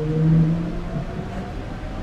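Toshiba GTO-VVVF inverter and traction motors of a Nagoya Subway 5050-series train heard from on board, whining in several tones that glide slowly upward as the train accelerates, with a louder low hum in the first half second.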